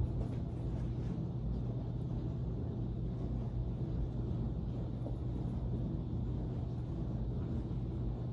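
A steady low hum over a low rumble.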